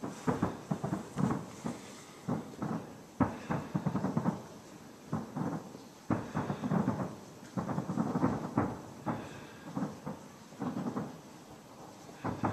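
Distant aerial firework shells bursting: an irregular string of bangs that come in clusters with short gaps between them.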